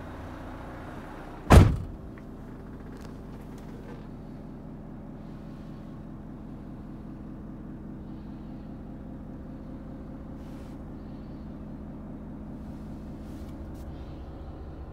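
Renault T460's 11-litre six-cylinder Euro 6 diesel idling steadily, heard from inside the cab. About a second and a half in there is one loud bang.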